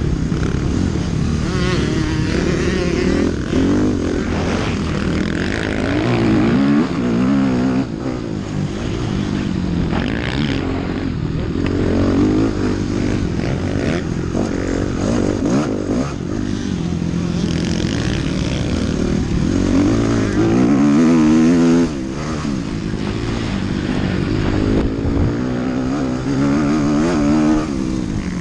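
Motocross dirt bike's engine, heard from a camera mounted on the bike, revving hard and falling back again and again as the rider races, shifts and brakes for turns.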